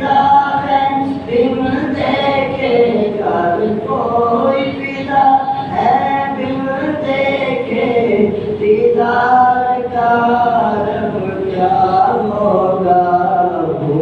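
A man chanting an Islamic devotional song unaccompanied into a microphone: a single melodic voice with long held notes that glide between pitches, and no instruments.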